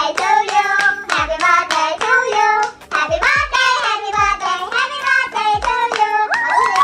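Singing with hand clapping over a low thumping beat, the melody held in long sung notes.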